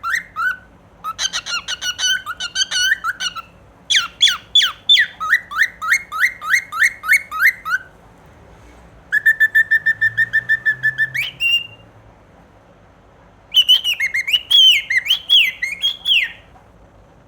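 Cockatiel singing in bouts of quick, repeated whistled notes separated by short pauses. In one bout the notes hold a steady pitch, ending in a short rising whistle.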